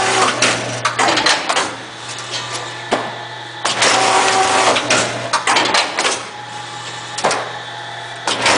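Mirong MR-500 twin-loop wire binding machine running its automatic cycle: a steady motor hum under bouts of clattering and clicking that come back about every four seconds.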